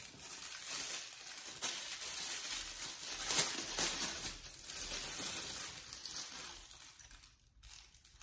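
Clear plastic packaging bag crinkling and rustling as it is handled and opened and an accessory is pulled out of it. The crinkling dies away a little over a second before the end.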